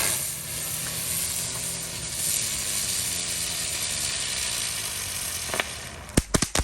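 Ground fireworks burning with a steady, loud hiss. About six seconds in, a quick series of sharp cracks sets off from the crackling ball.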